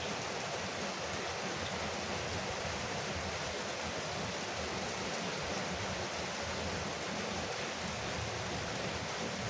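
Rain falling steadily on a porch roof, a dense, even patter with no break.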